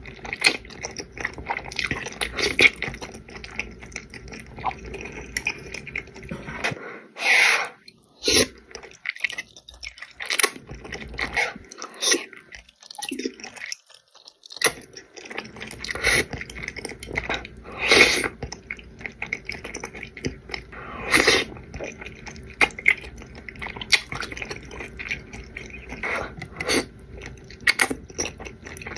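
Close-miked mukbang eating sounds: a person chewing and eating Buldak spicy noodles, with a run of short wet mouth noises and a few louder, longer bursts.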